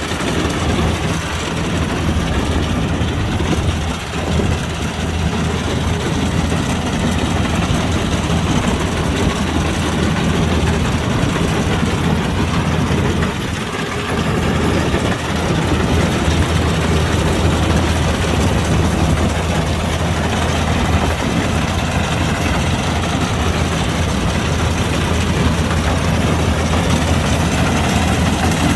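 Kubota combine harvester running steadily under load, with a deep continuous hum and brief dips in level about 4 seconds in and again around 14 seconds.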